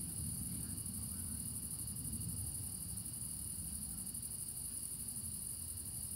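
Night-time chorus of crickets trilling steadily and without pause in a high, continuous band, over a low steady rumble.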